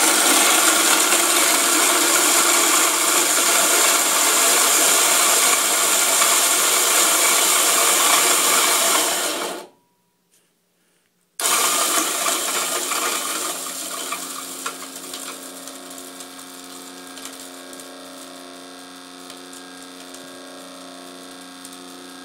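Tomlin CM400 commercial coffee grinder grinding popcorn kernels at its finest espresso setting: a loud, gritty grinding over the motor. It cuts out for a second or two about ten seconds in. It then resumes loud and tapers off over several seconds into the quieter steady hum of the motor running.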